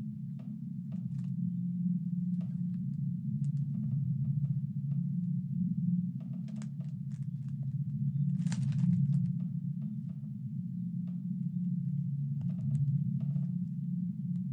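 Paper and photographs rustling and clicking as they are handled and sorted, with a longer rustle about halfway through, over a steady low drone.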